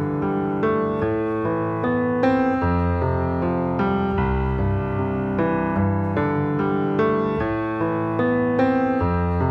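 Steinway grand piano played solo: a flowing run of sustained notes and chords, changing several times a second at an even loudness.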